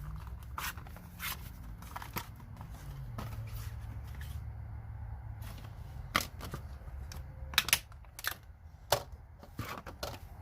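Scattered sharp clicks and knocks of a socket set and its packaging being handled, several of them louder between about six and nine seconds in, over a low steady hum.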